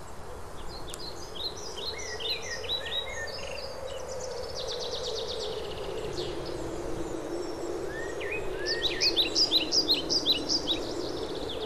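Small songbirds singing outdoors: many quick high chirps, with a fast trill about five seconds in, and the chirping grows busier near the end, over a steady low background noise.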